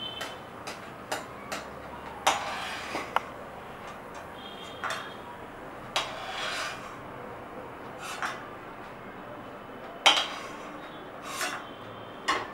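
A slotted spoon stirring cashew pieces in ghee in a kadhai, giving short scrapes and knocks against the pan about every second or two.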